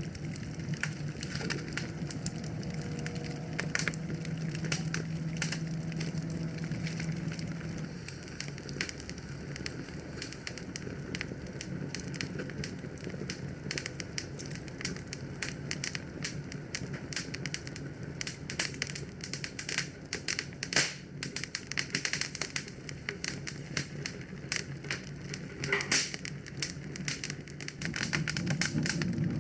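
Wood fire crackling in a fireplace, with frequent sharp irregular pops and snaps over a steady low rumble.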